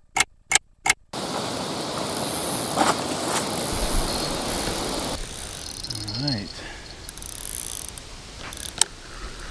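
Sharp mechanical ratchet-like clicks, about three to four a second, for the first second, then a steady rushing noise for about four seconds that fades to quieter background.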